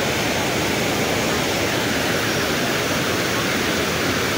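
Floodwater pouring over a small dam and churning below it, a loud, steady rush of water.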